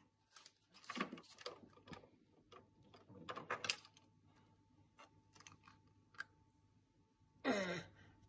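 Light clicks and knocks of plastic toys being handled on a window sill. Near the end comes a short sound whose pitch falls.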